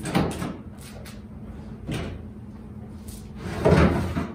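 Ford F-150 pickup tailgate being unlatched and lowered: a sharp clunk as it releases, a smaller knock about two seconds in, and the loudest metal clunk near the end as the tailgate comes down.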